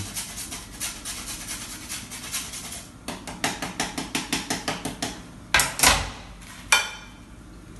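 Fresh horseradish root grated on a flat metal hand grater: quick, rhythmic rasping strokes, about six a second at their fastest. Near the end, three sharper knocks of metal on the wooden board.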